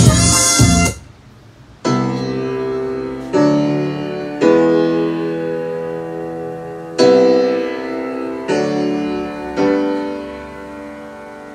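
Music from a CD played through a Kenwood KR-3090 receiver and floor speakers. Loud music stops about a second in, and after a short pause slow keyboard chords begin. Each chord is struck about every one to two seconds and left to ring down.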